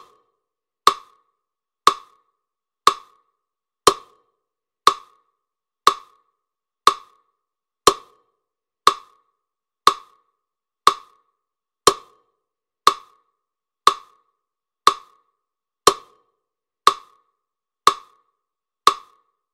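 A sharp, woody tick repeating steadily once a second, like a metronome or clock, each tick short and dying away fast with nothing between them.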